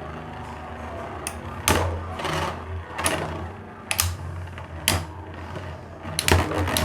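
Two Tornado spinning tops, Destroyer and Leone, whirring in a stamina battle, with a steady low hum and sharp clicks as they collide every second or so. A quick run of clicks and rattles comes near the end.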